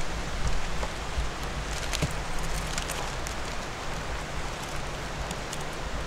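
Steady rushing wind noise on the microphone, with a few faint small clicks and rustles as a screw on a flintlock's lock is worked with a turnscrew.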